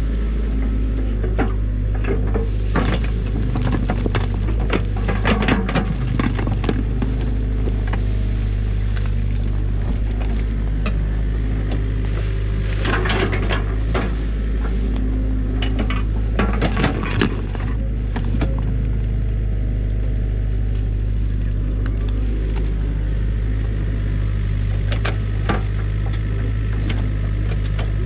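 Mini excavator's diesel engine running steadily, with bursts of clattering and cracking as the bucket digs into a beaver dam of sticks and mud.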